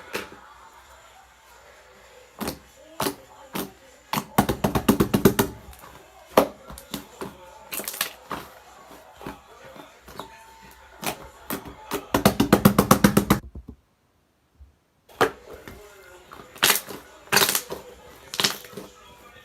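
Slime being squeezed and pressed by hand, giving scattered sharp clicks and pops and two runs of rapid crackling clicks from trapped air bubbles.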